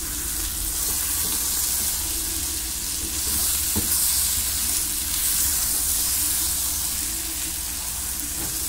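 Onion, garlic, plantain and calabresa sausage sizzling in margarine in a frying pan over high heat: a steady frying hiss, with one faint click about four seconds in.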